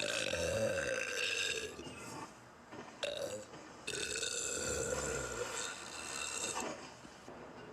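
A woman burping: two long, drawn-out burps, with a short one between them about three seconds in.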